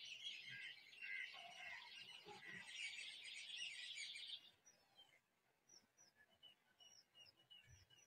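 Faint bird chirping: a busy chorus of overlapping chirps for about four seconds, then thinning to scattered short, high chirps.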